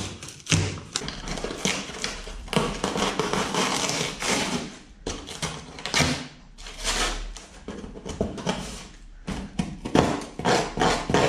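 Cardboard shipping box being cut and torn open with a scrap of sheet metal: uneven bursts of scraping, ripping and rustling with sharp knocks.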